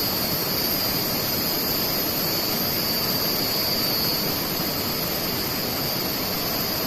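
River water rushing, a steady, even noise throughout.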